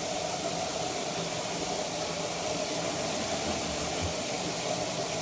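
Water spraying hard and steadily from a broken plumbing fixture into a room, a continuous hiss.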